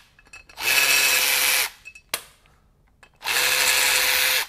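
Cordless electric ratchet running in two steady bursts of about a second each, with a short click between them, as it backs out broken exhaust manifold bolts through nuts welded onto them.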